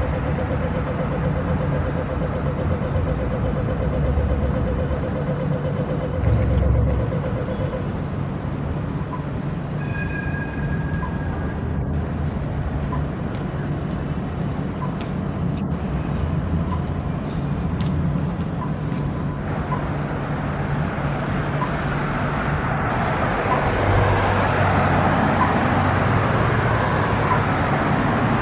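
Steady road traffic noise with engines running, growing louder over the last several seconds.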